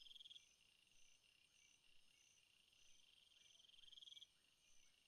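Faint crickets chirping: a steady high trill that swells twice and cuts off near the end, with short higher chirps repeating under a second apart.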